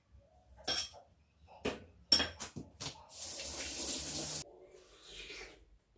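A few sharp clicks and knocks of a knife and dishes at a kitchen sink, then the tap runs in a steady rush for about a second and a half and is shut off abruptly.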